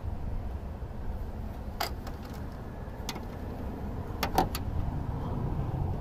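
A few sharp clicks from small hand tools and wire handling during a wiring repair: one about two seconds in, one near the middle, and a quick run of three a little later. They sit over a steady low outdoor rumble.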